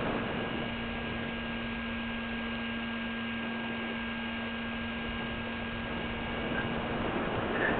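A steady low hum over an even hiss.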